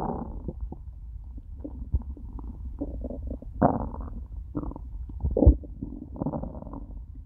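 An empty human stomach gurgling and rumbling after a day without food, in a series of short, irregular gurgles over a steady low rumble, the loudest about five and a half seconds in.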